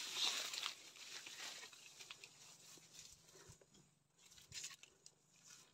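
Leaves and grass rustling and dry banana leaves crackling as someone pushes through undergrowth on foot. The rustling is strongest in the first second, then thins to soft, scattered rustles, with a short flurry about four and a half seconds in.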